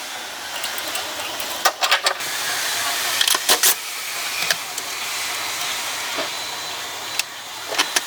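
Steady hiss with a few sharp clicks and knocks, in short clusters about two seconds in, around three and a half seconds in, and near the end: hand tools and metal parts handled at a car battery in the trunk.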